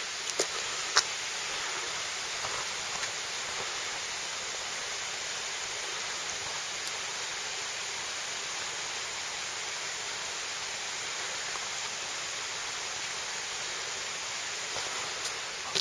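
Steady, even rush of water pouring over a concrete weir. Two sharp clicks sound about a second in.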